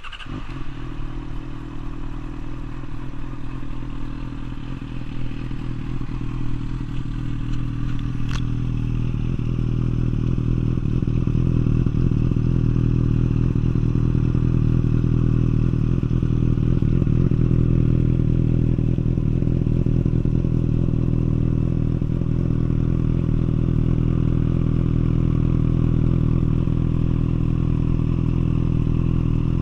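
Yamaha FZ6 S2's 600 cc inline-four engine, breathing through a SHARON Racing aftermarket exhaust, comes in suddenly at the start and idles steadily. There is a single sharp click about eight seconds in. The idle grows louder and fuller at about ten seconds, then holds steady.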